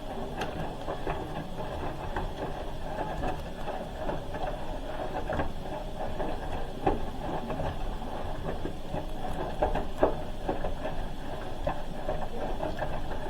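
Hoover H-Wash 300 Plus front-loading washing machine in its wash phase: the motor turns the drum while the laundry tumbles in shallow water, giving a steady run with frequent soft clunks and splashes.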